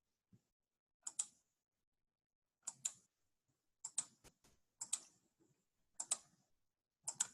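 Clicking at a computer: six pairs of sharp clicks, each pair a quick press and release, coming about once a second.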